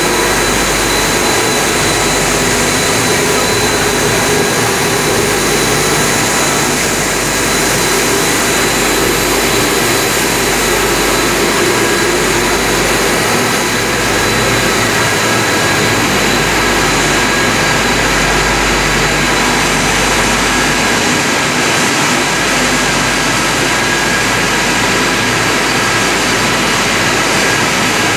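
Machinery of a roller line running: loud, steady noise of motors and cooling fans with a thin steady whine high up.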